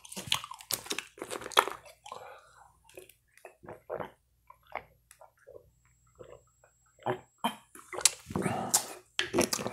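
Plastic water bottle being twisted open with sharp clicks and crackles, then a series of soft gulps as water is swallowed from the bottle, with a louder burst of noise about eight seconds in.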